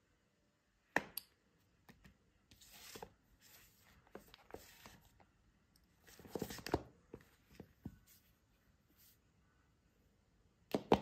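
Smartphones handled on a wooden tabletop: a tap, stretches of rubbing and sliding, small clicks, and a sharp knock near the end as a phone is picked up and set against the other.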